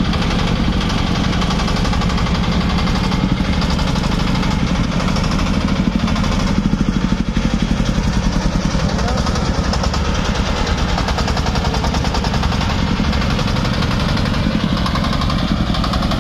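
Truck engine running steadily while the truck is driven, with a fast, even pulse and no change in pitch.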